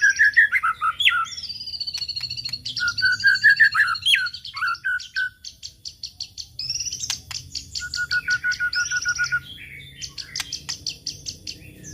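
White-rumped shama (murai batu) singing a rapid, varied song: runs of quickly repeated whistled notes and trills mixed with sharp clicks, typical of a lure song used to provoke other shamas to sing.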